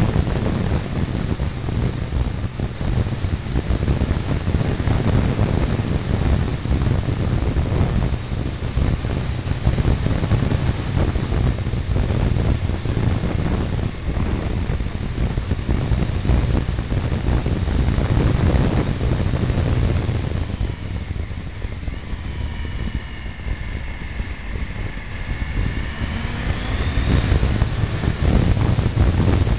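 Triumph Tiger 955i's three-cylinder engine running under way, with heavy wind noise on a mirror-mounted microphone. About two-thirds of the way through the wind eases and the engine note rises steadily as the bike accelerates, then the wind noise returns near the end.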